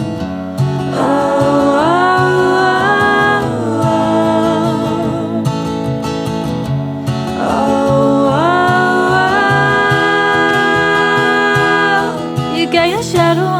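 Background song: a singer holds two long notes over instrumental backing.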